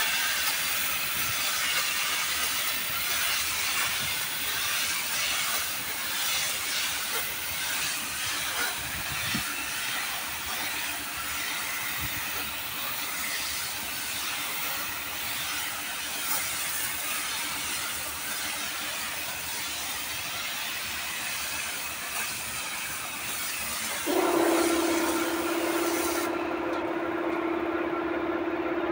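Steady hiss of compressed air from a suction-feed paint spray gun. Near the end a steady hum starts, and soon after the hiss cuts off suddenly.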